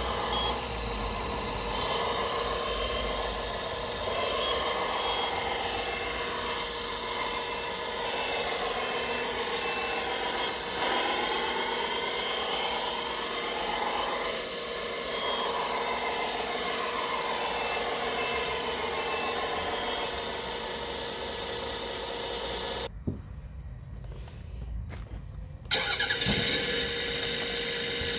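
Small electric motors and gearing of a radio-controlled construction model whining, their pitch rising and falling as they speed up and slow down. The sound drops away for about three seconds near the end, then resumes.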